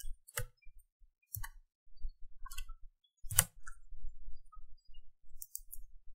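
Scattered sharp clicks of a computer mouse and keyboard, roughly one a second, with a quick run of clicks near the end. A faint low hum runs under them.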